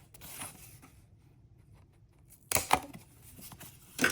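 Paper and card being handled with a soft rustle, then a few sharp knocks of small craft items against the tabletop about two and a half seconds in and again near the end.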